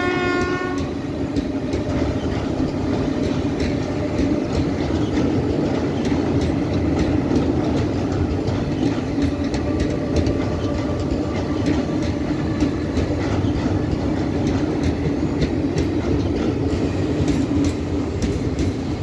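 Passenger train coaches rumbling steadily across a steel girder bridge, wheels clicking over the rail joints. The tail of a train horn blast cuts off about a second in.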